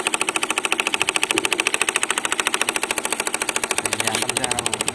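Miniature engine of a model corn-sheller vehicle running with a rapid, even beat.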